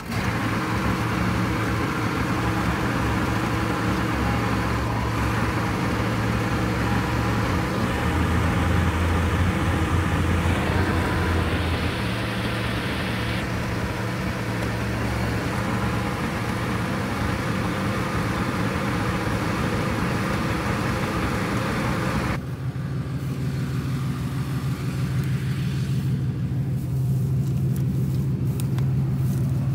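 Vehicle engine running steadily with a low, even note that rises briefly about a third of the way in. About three-quarters of the way through the sound changes abruptly to a duller, steadier engine note.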